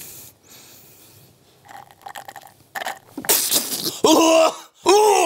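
A man sucking a blended burger-and-fries mush up a straw, then gagging and spluttering from about three seconds in, with loud throaty retching and coughing sounds as he spits the chunks out.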